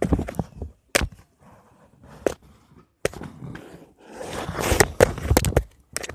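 Handling noise: sharp knocks and rustling as the phone filming bumps and rubs against the woven sack, with a longer stretch of rustling about four seconds in.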